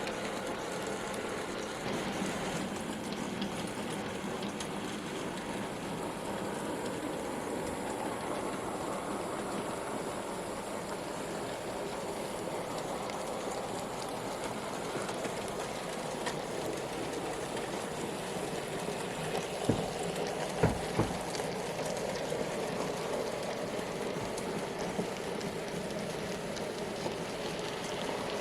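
N gauge model trains running round a layout with no sound fitted: a steady whirr and rattle of small electric motors and wheels on the track, with a few sharp clicks about twenty seconds in.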